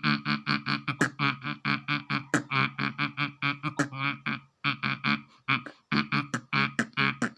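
A person beatboxing, imitating a drum kit with the mouth: a fast, even run of short voiced pulses, about six a second, cut through by sharp click-like hits.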